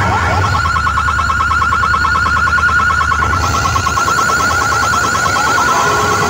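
DJ sound system playing electronic dance music: a fast-warbling, siren-like synth tone over heavy bass, and the bass drops away about four seconds in.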